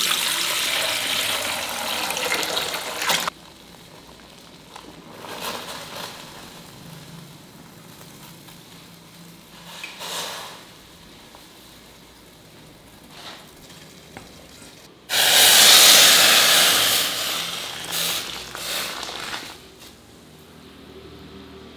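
Water pouring and splashing in a stainless steel pot for about three seconds, cutting off suddenly. After a quieter stretch with a few brief splashes, a second loud rush of water comes for about two seconds, tailing off in smaller splashes.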